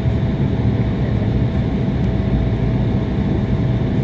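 Embraer 175 jet's turbofan engines running, heard inside the cabin next to the wing engine: a steady low rumble with a steady hum over it as the airliner moves along the runway.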